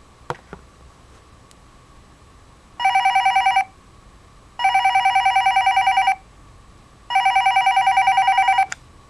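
Sailor Chibi Moon toy cordless phone ringing: its electronic ringer plays three bursts of rapid trilling beeps, a short one followed by two longer ones of about a second and a half each. A light click comes just before, near the start.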